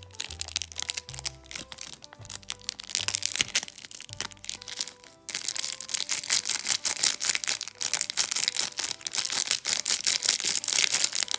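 Thin plastic glitter sachet crinkling and crackling in the fingers as it is squeezed and shaken empty into a cup, sparser for a few seconds then dense again from about halfway, over soft background music.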